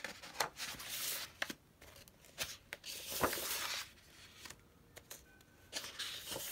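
Large sheets of scrapbook paper rustling and swishing as they are lifted and leafed through one at a time, with a few soft taps.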